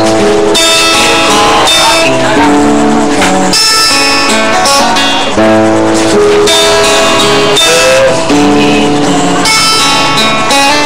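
Acoustic guitar being played: strummed and plucked chords, changing every second or so, with a short bent note about eight seconds in.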